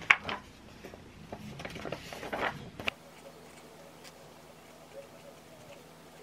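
Paper being handled and rustled close up, with a few sharp clicks. After a sudden cut about three seconds in, a felt-tip pen scratches faintly on a paper memo pad.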